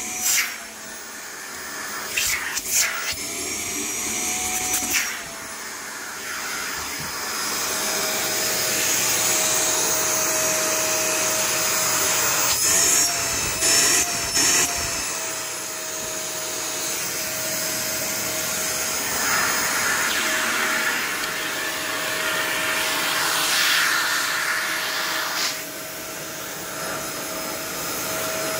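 Eureka Mighty Mite canister vacuum running with a steady motor whine. Its pitch wavers briefly a couple of times as a hand covers and uncovers the wand opening. A few knocks come early on. In the second half the floor nozzle is pushed over carpet and adds a rushing hiss of air.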